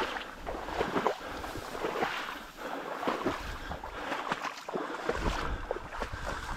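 Someone moving through a reed marsh: dry reeds rustling and crackling in quick irregular snaps, with water swishing and wind rumbling on the microphone.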